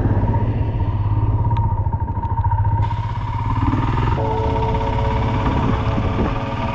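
Royal Enfield Himalayan's single-cylinder engine running as the motorcycle rides on, with a steady low pulse. A hiss spreads higher about three seconds in.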